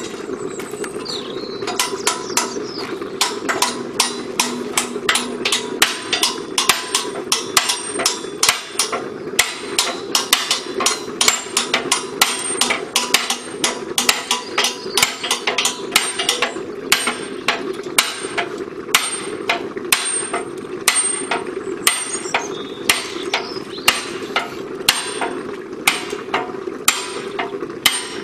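Hammer blows on a set tool held against a hot curved steel firebox plate for a Sentinel S4 steam waggon, forming the plate: a steady run of sharp metal-on-metal strikes, about two to three a second, some leaving a brief ring. A steady low rushing noise runs underneath.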